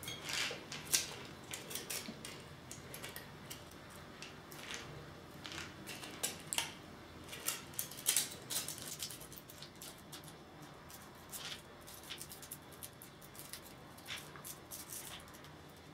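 Kinder Surprise foil wrapper crinkling faintly in small, irregular crackles as it is folded by hand around an egg.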